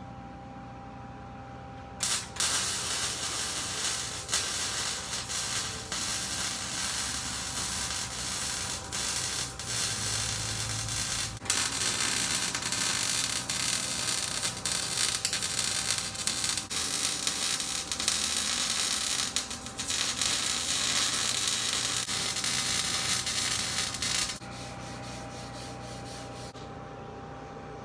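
Arc welding on steel square tubing: a steady, dense crackle and sizzle of the welding arc that starts about two seconds in, breaks off briefly a few times, and stops a few seconds before the end.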